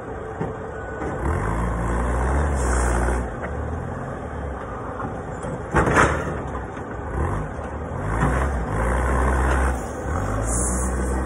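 Propane forklift engine running and revving up and down as the forklift maneuvers, with one loud sharp knock about halfway through.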